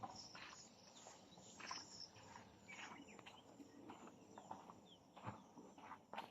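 Faint footsteps of someone walking, with soft scattered rustles over a quiet outdoor background.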